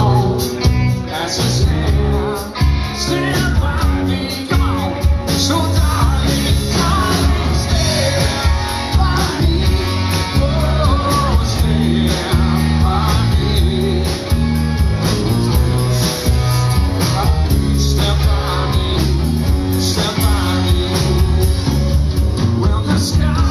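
Live rock band playing with a man singing into a microphone over electric guitar, heard from within a packed audience.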